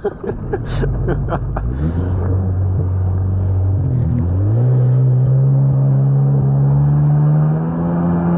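Sea-Doo jet ski engine throttling up about two seconds in, easing off briefly and climbing again near the middle, then holding a steady high pitch that creeps slightly higher. A few short knocks come at the start.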